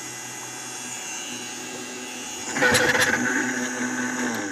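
Countertop blender motor running, pureeing thick roasted butternut squash soup. It gets clearly louder about two and a half seconds in, then winds down right at the end.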